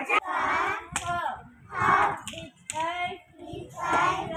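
A group of young children singing an action song together in unison, with a few sharp hand claps.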